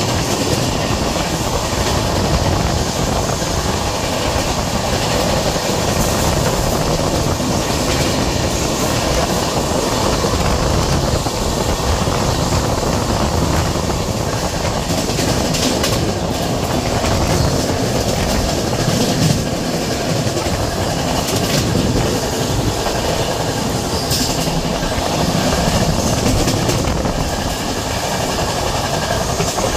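Passenger train running along the track, heard from an open coach door: a steady rumble of wheels on rail with a few sharp clicks and clanks.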